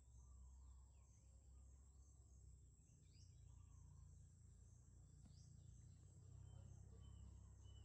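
Near silence: faint outdoor ambience with a low rumble, a steady high-pitched insect drone, and scattered distant bird chirps, including two short rising calls.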